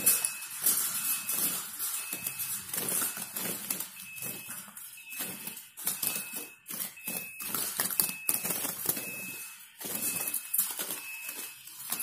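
Wire bird cage rattling and clattering in irregular bursts as hands work through the bars and small birds flutter inside. A short high steady tone repeats about once a second throughout.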